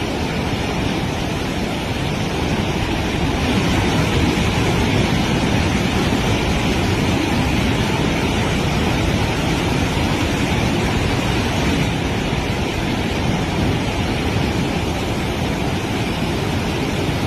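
Loud, steady rush of floodwater pouring through a broken dam flood gate.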